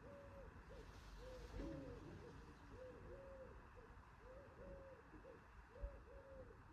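A bird cooing faintly in a long run of soft, low, arched notes, each about half a second long. A single low bump comes near the end.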